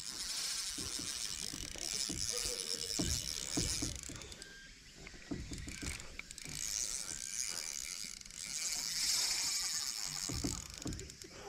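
Spinning fishing reel at work in stretches of a second or two: a fast, high mechanical whirring click, with a few dull knocks in between.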